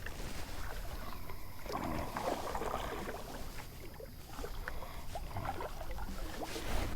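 Water splashing and lapping around a kayak, in irregular bursts over a steady low rumble.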